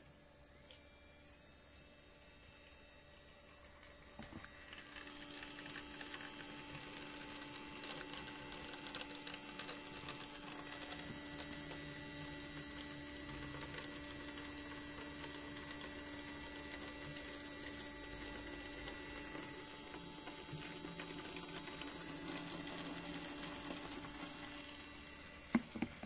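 LG WD-14370FD direct-drive front-loading washing machine running a wash cycle, its drum turning the wet laundry. A steady motor hum and hiss swell about four seconds in, and a couple of sharp clicks come near the end.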